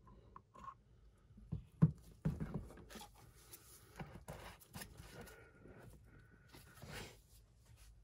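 Handling of plastic containers with nitrile-gloved hands: a sharp knock of plastic on the table about two seconds in, a few smaller knocks, then faint scraping and rustling of gloves on plastic with a brief squeak.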